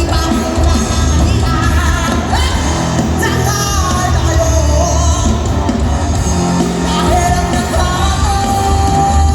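Live band performing a song, with a lead singer's voice over the band's loud, steady accompaniment.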